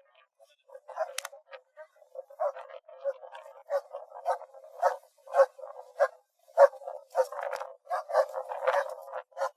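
German Shepherd barking in a run of short, irregular barks that starts about a second in and grows more frequent.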